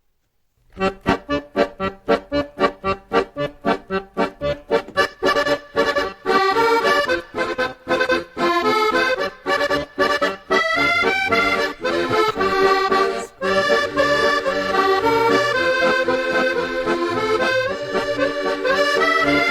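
Background music: an accordion tune that opens with quick, short repeated notes and then moves into longer held notes.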